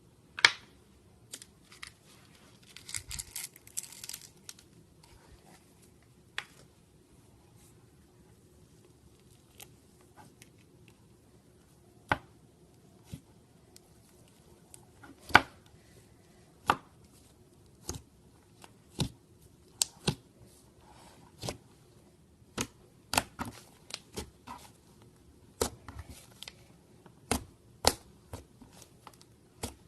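Slime being squeezed and poked by hand: irregular sharp pops and clicks, with a short crackly stretch about three seconds in.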